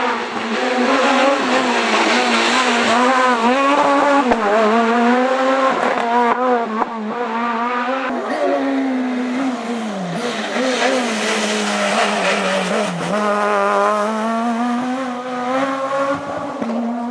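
Renault Clio S1600 rally car's 1.6-litre four-cylinder engine revving hard under load. Its pitch repeatedly climbs and drops with gear changes and lifts, with sharper drops about ten and thirteen seconds in.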